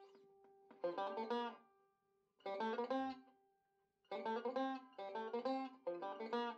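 Background music played on a plucked string instrument: short bright phrases of quickly picked notes, broken by brief pauses.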